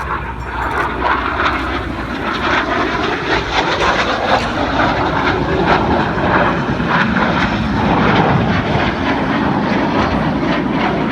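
Jet engines of two BAE Hawk T1 display jets passing head-on in a close crossing. A steady jet noise builds in loudness over the first couple of seconds and then holds.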